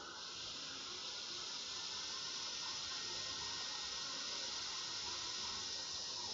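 Hot-air rework station comes on and blows a steady hiss of air from its nozzle, heating a tiny surface-mount filter capacitor on a phone logic board.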